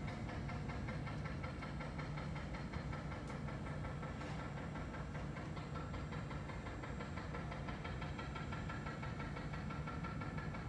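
OCA vacuum laminating machine running through its holding stage under vacuum and pressure: a steady mechanical hum of its pump, with a faint hiss.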